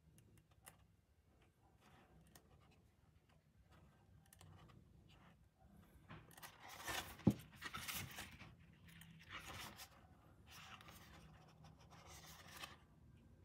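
Pages of a glossy photo book being turned by hand: faint paper rustling and sliding, louder in the second half, with one sharp tap about seven seconds in.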